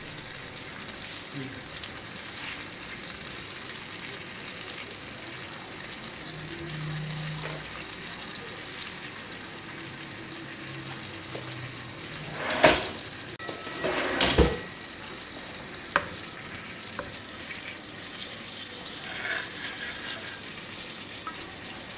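Chicken pieces with tomatoes sizzling in oil on a non-stick tawa, a steady frying hiss. A little past the middle come a few loud clatters, most likely a utensil knocking against the pan, and a single sharp click follows a moment later.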